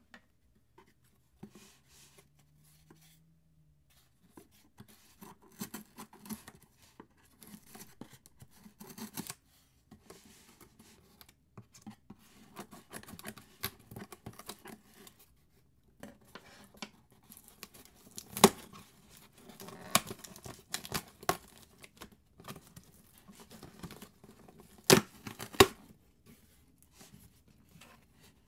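Packing tape on a cardboard shipping box being cut and torn open, with scratchy scraping along the box seams and a few sharp clicks, the loudest about 18 and 25 seconds in.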